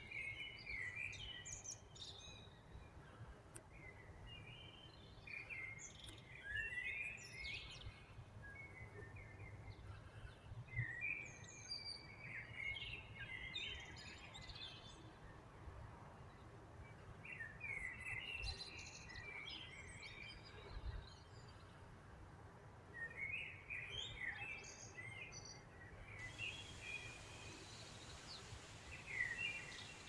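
Songbirds singing: short clusters of chirping phrases come every few seconds over a faint low outdoor rumble.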